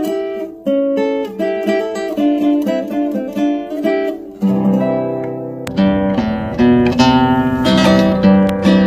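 Nylon-string classical guitar played fingerstyle. A picked melody of single notes runs first; about halfway through deeper bass notes come in and the playing turns fuller and louder with plucked chords.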